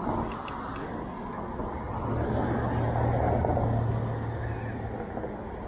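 City street traffic heard from a moving e-bike, over a steady road noise. A motor vehicle's low engine hum swells about two seconds in, holds for a few seconds, and fades near the end.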